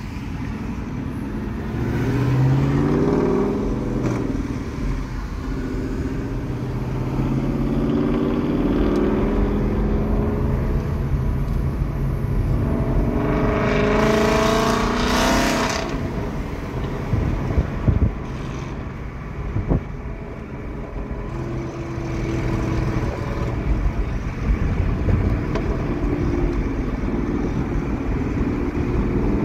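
A third-generation Ford Coyote 5.0 V8 swapped into an S197 Mustang, accelerating hard several times with its pitch climbing on each pull, over steady road noise. It is heard from inside a following car.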